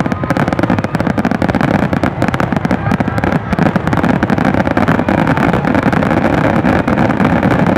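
Fireworks finale: aerial shells bursting in a dense, continuous barrage, many overlapping bangs with no gaps between them.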